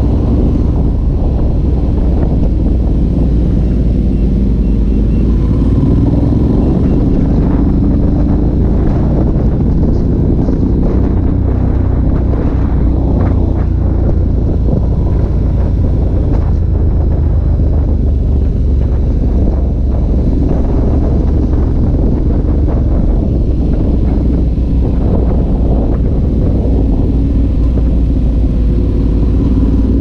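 2016 Ducati Multistrada 1200 S's V-twin engine running through a Termignoni racing exhaust while the bike is ridden, its pitch slowly rising and falling with throttle and speed.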